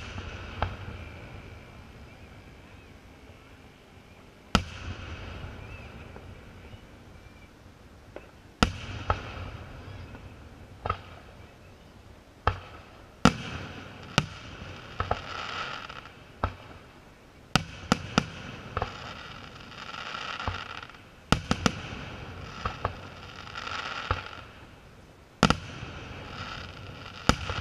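Aerial fireworks shells bursting at a display: sharp booms every second or two, some in quick pairs, each trailing off in an echoing rumble.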